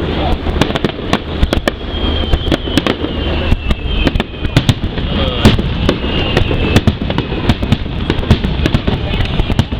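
Fireworks display going off: a rapid, dense series of sharp bangs and crackles over a continuous rumble.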